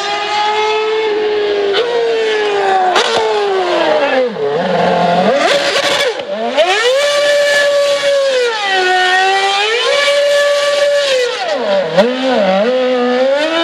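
Red Bull RB7 Formula One car's V8 engine revving hard, its pitch sweeping up and down again and again, with deep drops in revs about four and a half and twelve seconds in. It is doing doughnuts with its rear tyres spinning.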